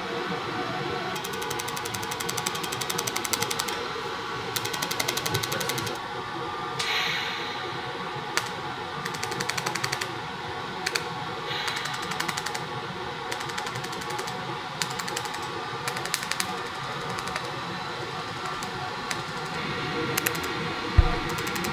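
Pulsed laser welder firing on an aluminium cylinder head: a rapid, even ticking in runs of a few seconds that stop and start.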